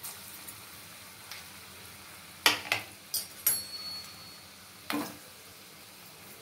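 Dal vada balls sizzling steadily in hot oil in a small aluminium kadai. Between about two and a half and five seconds in, a few sharp metallic clinks sound, one ringing briefly; these are the loudest sounds.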